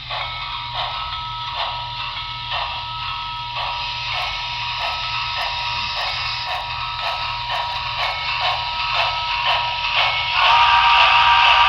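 HO-scale USRA Light Pacific steam locomotive's Paragon3 sound decoder playing steam chuffs at a steady beat of about two a second through its small onboard speaker, with a steady whistle-like tone held under them. About ten seconds in, a louder hiss and stronger tones join.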